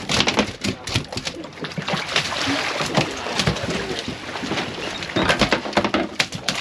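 Water splashing and sloshing alongside an open fishing boat at sea, with many short knocks and clatters from the deck and gear.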